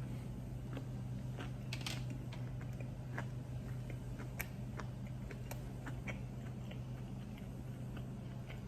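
A person chewing a chicken nugget with a scatter of small, faint mouth clicks and crunches, over a steady low hum.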